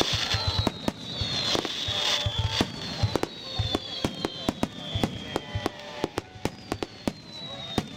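Fireworks display: aerial shells bursting in quick succession, many sharp bangs and crackles a second, with high whistling tones that fall in pitch running through.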